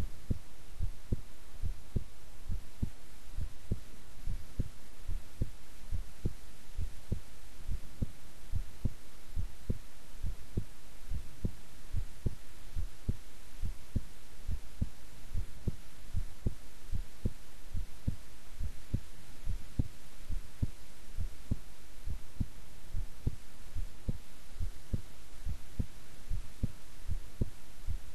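A woman's resting heartbeat, a steady, even rhythm of low thuds over a faint steady hiss.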